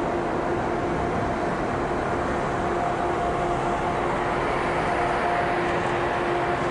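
A DB class 140 (E 40) electric locomotive passing close by with its train, a steady hum with two held tones over the noise of the running gear.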